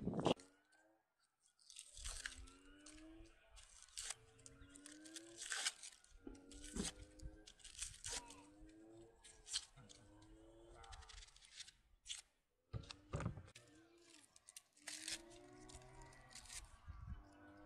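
A small paring knife peeling and trimming raw onions: dry onion skin tearing and the flesh crunching in short strokes about once a second, many of them with a brief squeak.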